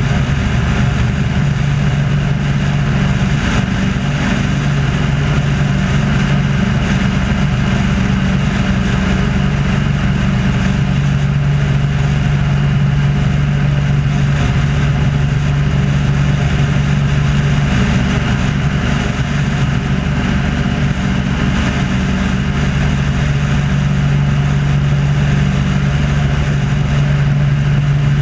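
Wolf Pitts Pro aerobatic biplane's piston engine and propeller running in flight, heard from outside the aircraft: a loud, steady drone whose pitch shifts slightly now and then.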